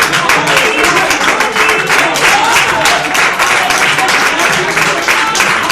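Church congregation clapping and calling out in response to the preaching, with music playing underneath.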